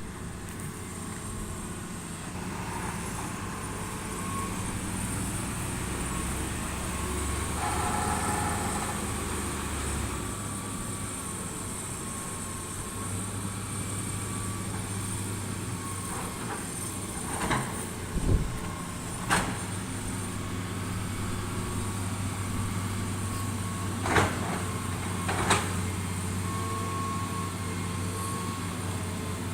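Heavy diesel construction machinery running steadily, with several sharp metallic clanks, a cluster about two-thirds of the way through and two more near the end.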